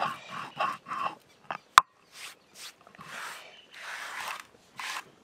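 Dry-roasted whole spices being ground on a stone slab with a stone roller (sheel-nora). There is a sharp knock of stone on stone about two seconds in, then about five rasping scrapes as the powder is worked and swept across the slab.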